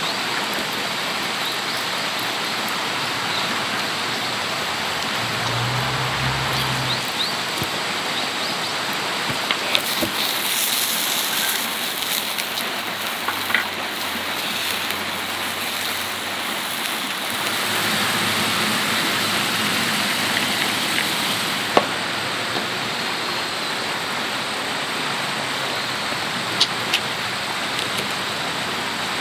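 Steady rush of water noise throughout, with a few small clicks and knocks of utensils. For several seconds in the middle a brighter hiss rises over it, with sausages sizzling in a cast-iron skillet.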